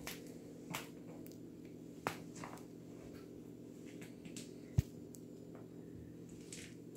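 Faint, scattered rustles and taps as a cat tugs and grapples with a plastic bag on a hard floor, with one sharp low thump a little under five seconds in. A steady low hum runs underneath.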